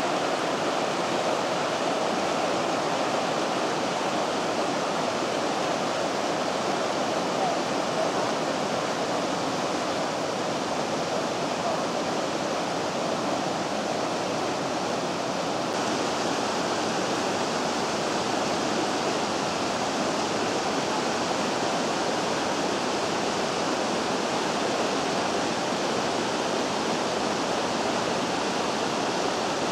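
The Vydra, a mountain river, rushing steadily over its rocky rapids. About halfway through the sound turns slightly hissier.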